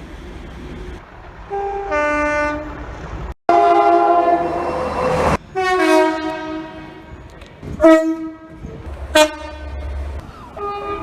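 A run of UK train horn blasts spliced together from different clips, cutting abruptly from one to the next: two-tone horns sounding a higher note then a lower one, a long loud blast in the middle, and short sharp toots towards the end, over the low rumble of trains.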